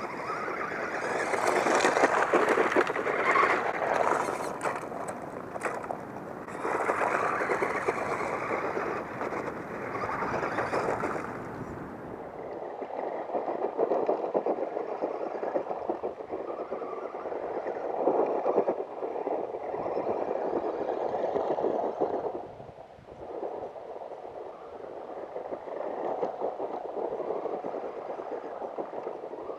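Radio Shack RC car's battery-powered motor whirring and its tyres crunching over gravel, swelling and fading as it speeds up and slows. About twelve seconds in the sound turns duller.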